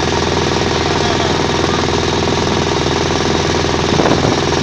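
A motorboat engine running steadily, heard from on board the moving boat.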